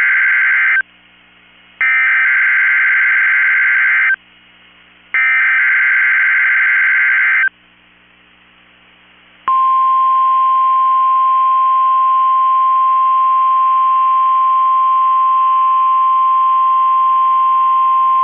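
NOAA Weather Radio SAME header: three bursts of screechy digital data, about two seconds each with a second's gap between them, the first already under way. After a short pause comes the steady 1050 Hz warning alarm tone, held for about nine seconds, which switches on specially built weather radios; here it opens a Required Weekly Test.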